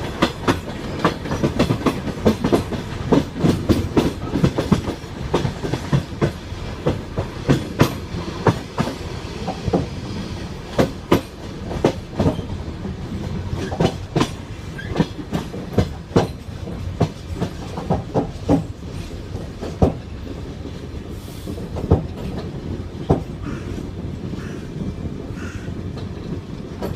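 Train wheels clacking over rail joints over a steady running rumble, the clicks coming in quick groups at first and then further apart through the second half as the train slows on arrival.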